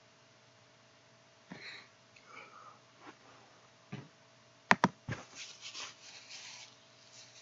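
A computer mouse clicking: a sharp pair of clicks about halfway through, with fainter short clicks and soft hissy noises close to the microphone around it.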